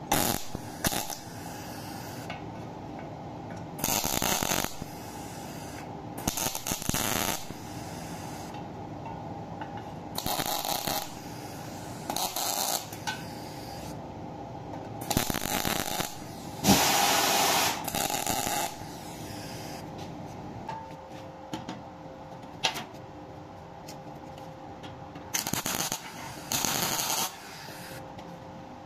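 MIG welder tack-welding small steel parts together: about ten short welds, each half a second to a second and a half long, separated by a steady background hum.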